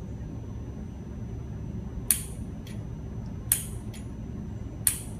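Nitrous solenoid clicking as the ECU switches the nitrous on once throttle position passes 80%: three sharp clicks about a second and a half apart, each followed by a fainter click about half a second later. A steady low hum runs underneath.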